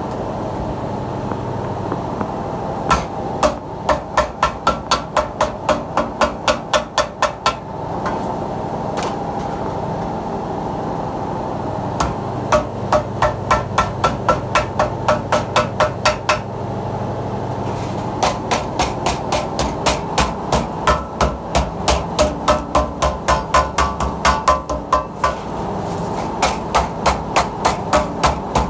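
Wooden mallet beating thin sheet steel along a steel channel, folding the edge of a tray: runs of quick, even blows, about three to four a second, with short pauses between runs.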